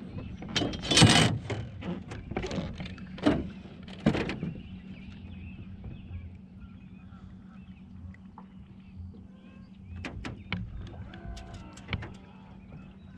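Steady low hum of an electric trolling motor, with knocks and clatter from handling in the boat: the loudest a sharp clatter about a second in, more knocks over the next three seconds, and a few lighter clicks near the end.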